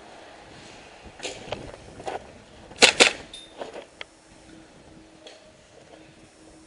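Airsoft gun firing two sharp shots a fraction of a second apart, with softer knocks and rustling before them and a few small ticks after.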